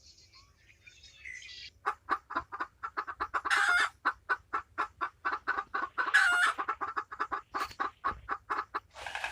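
Chickens clucking in a fast, steady series of short calls, broken twice by a longer, louder squawk. Faint small bird chirps come before the clucking starts about two seconds in.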